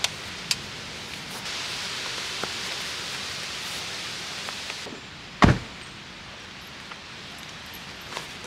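A pickup truck's door shut with one heavy thump about halfway through, after a steady hiss with a few light clicks.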